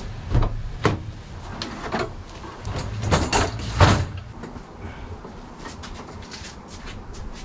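Clunks and knocks of a van's rear doors being opened and a folding table being set down, a few separate hits in the first four seconds with the loudest near four seconds in, followed by quieter bumping and scraping as cardboard boxes are handled.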